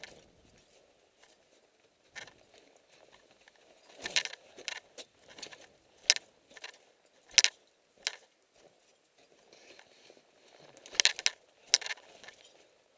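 Footsteps crunching in snow: irregular sharp crunches roughly every half second to a second, with quieter gaps between.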